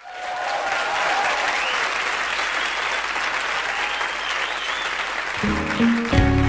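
Studio audience applauding. About five seconds in the band starts playing, with low sustained instrument notes coming in under the fading applause.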